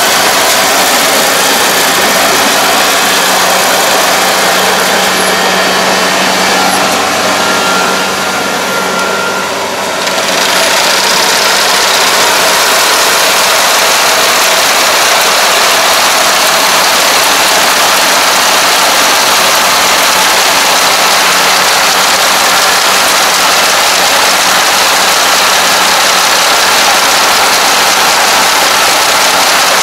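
ANR460 crawler combine harvester running under load as it cuts flattened, lodged rice: a loud, steady machine noise of engine and threshing gear over a steady low hum. It drops a little about a third of the way in, then comes back louder.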